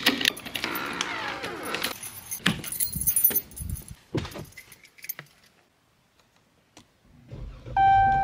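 Car keys jangling and clinking for the first few seconds, then a short quiet. Near the end a low rumble rises as the Dodge Challenger's engine is started with the push button, and a steady ringing tone comes in over it.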